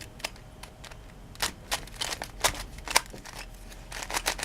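Plastic Megaminx puzzle being turned by hand: a series of irregular sharp clicks as its faces snap round.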